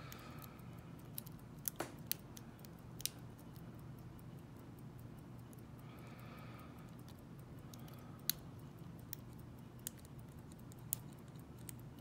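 Small metallic clicks and ticks of a lock pick and tension wrench working the pins of a pin-tumbler lock cylinder, scattered and irregular, several in the first three seconds and a few more later, over a faint steady hum.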